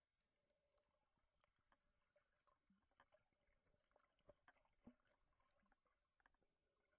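Near silence underwater, with faint scattered clicks and crackles through the water.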